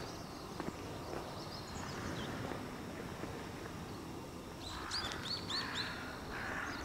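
Birds calling over a steady outdoor hiss: about five seconds in, a quick run of short, high, falling chirps, with hoarse calls starting alongside and repeating.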